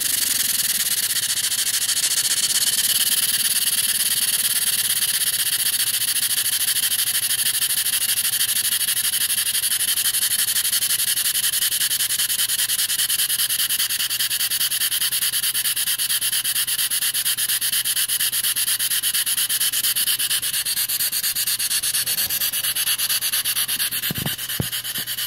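Stuart 10V model vertical steam engine running fast and steady on compressed air, its exhaust giving a rapid, even stream of chuffs. It is running really good.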